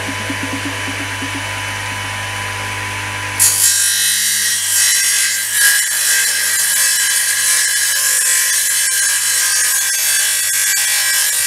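Small table saw's motor running with a steady hum; about three and a half seconds in the blade starts cutting wood, and the louder sawing goes on.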